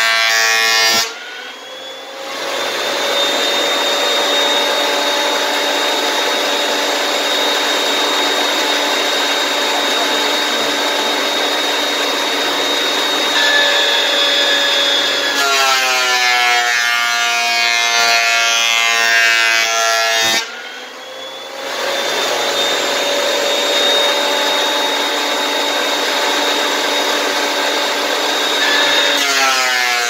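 Woodworking planer running and cutting a board, throwing chips. Its motor whine is steady, with a sudden break about a second in and again about two-thirds through, each followed by the whine building back up, and a shifting, wavering pitch just before the second break.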